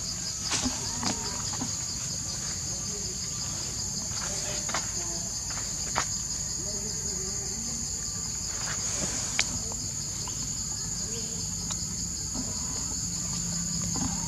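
A steady, high-pitched insect chorus, one part of it pulsing rapidly, with a few sharp clicks scattered through it.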